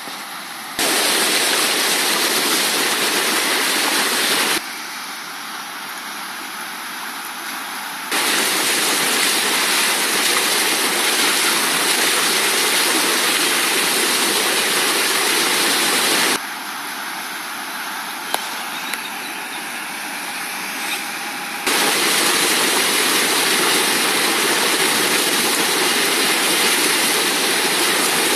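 Swollen river rushing and churning through a whitewater standing wave, a steady hiss of water. It jumps abruptly between louder and quieter stretches several times.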